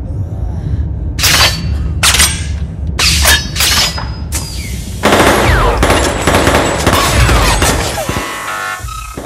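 Action-film battle sound mix: a run of sharp gunshots and impacts in the first few seconds, then a dense stretch of shooting and sliding sci-fi effects, all over a constant deep rumble.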